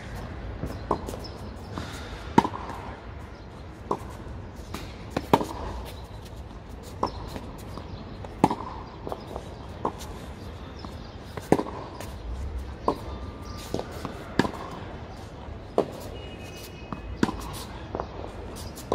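Tennis ball struck by rackets and bouncing on a hard court during a baseline rally: a sharp pop every second or so, the loudest hits coming about every three seconds.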